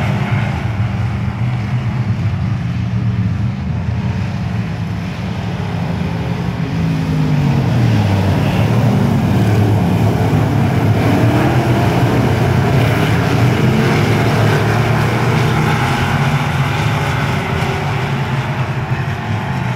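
A pack of dirt-track sportsman race cars with V8 engines running hard around the oval, several engines heard at once. About seven seconds in, a car going by close drops in pitch as it passes, and the engines climb again as they accelerate.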